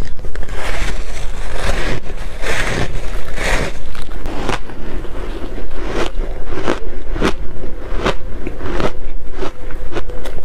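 Close-up crunching of dry shaved ice coated in matcha powder being bitten and chewed, a rapid run of crisp crunches, about two to three a second, with longer gritty crunches in the first few seconds.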